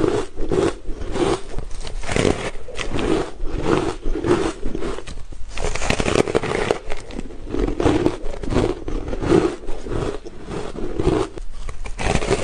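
Close-up chewing of frosty ice in the mouth: a steady run of crunches, about one or two a second.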